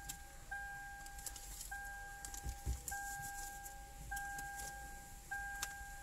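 Car's cabin warning chime: a single steady tone repeating evenly about every 1.2 seconds.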